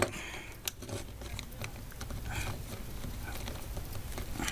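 Scattered small clicks and handling noise as a nut is run down and tightened onto a washer on a wire connection inside a vacuum cleaner.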